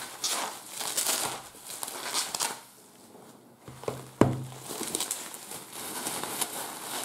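Packaging crinkling and rustling in bursts as it is handled and unwrapped by hand, with a single sharp knock a little after four seconds.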